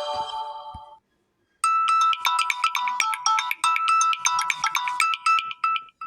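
Samsung Galaxy A04 ringtones: the end of one ringtone fades out in the first second. After a brief silence another ringtone starts, a fast run of short bright notes, and it stops just before the end.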